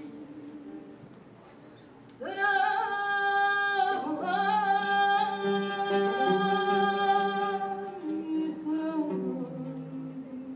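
A woman's voice singing unaccompanied: soft and low at first, then from about two seconds in long, loud held notes, each slid into, over a lower steady tone, falling back to softer, lower singing near the end.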